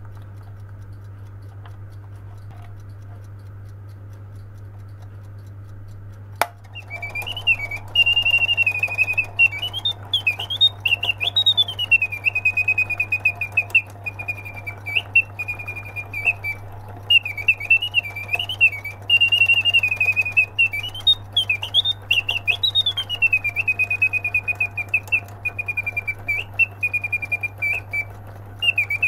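A singing bird cage alarm clock going off: a click about six seconds in, then the mechanical bird whistles a warbling song of rising and falling trills, with short pauses, over the whir of the clockwork. A steady low hum runs underneath throughout.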